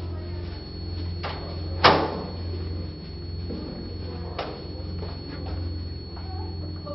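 A low, steady hum with one loud thud about two seconds in, and fainter knocks shortly before it and about four and a half seconds in.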